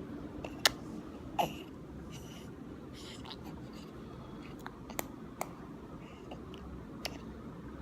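Baby hiccuping: a few short, sharp hiccups spaced irregularly, the loudest a little over half a second in.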